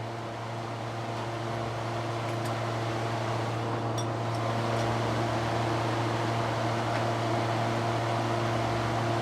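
Steady machine hum with a fixed pitch, slowly getting louder.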